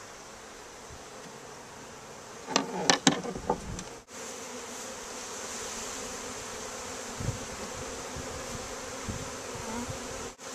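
Honey bee swarm buzzing steadily, with a short cluster of sharp knocks about two and a half seconds in.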